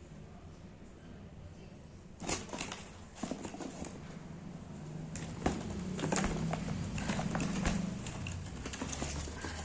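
Handling noise: from about two seconds in, quick crinkling rustles and clicks of shoes and packaging being handled.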